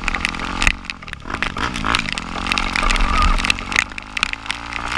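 Off-road vehicle engine running, revving up and down briefly about two seconds in, with many short sharp ticks over it.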